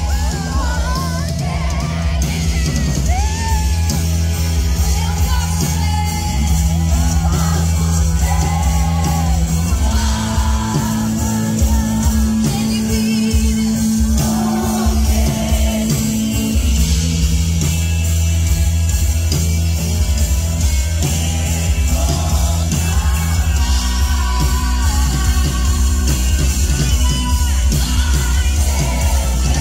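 Live gospel band played loud through the PA: a woman sings lead over electric bass, drums and keyboards, with crowd voices shouting along. Heard from within the audience.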